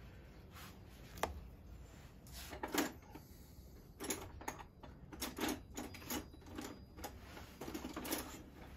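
Irregular light clicks and knocks of hands at work: a juniper bonsai's root ball being handled in a plastic tub and metal bonsai tools being picked up and set down on the table. The knocks come more often from about four seconds in.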